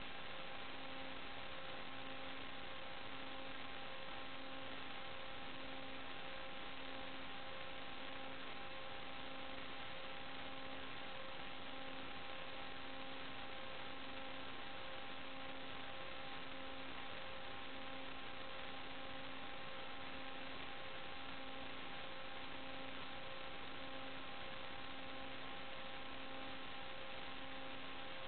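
Electrical hum and hiss on the audio of an analog FPV video link: a steady buzz made of several fixed tones over even hiss, with a lower tone pulsing on and off about once a second.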